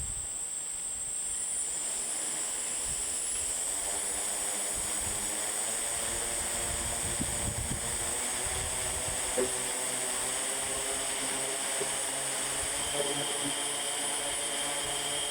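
DJI S1000 octocopter's electric motors and propellers spinning up and running, a steady whir that builds over the first few seconds, with a high whine above it.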